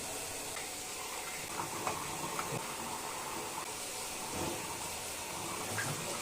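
Tap water running steadily into a sink while CPAP parts are washed with soap and water, with a few faint knocks of the parts being handled.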